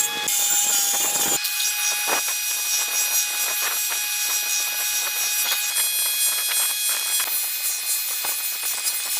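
Power tool running and working wood: a steady high-pitched whine and hiss with irregular clicks and scrapes, changing character about a second and a half in.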